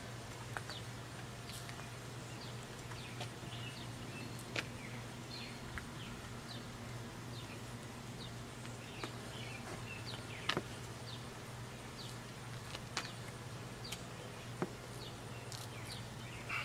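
Outdoor ambience: small birds chirping on and off over a steady low hum, with a few faint clicks.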